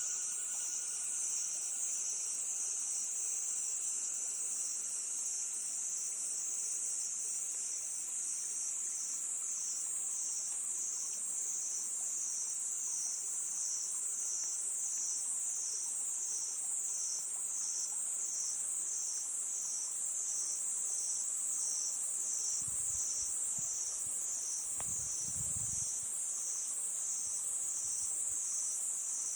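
A chorus of crickets trilling steadily at a high pitch, swelling in regular waves. A few low rumbles, like wind on the microphone, come about three-quarters of the way through.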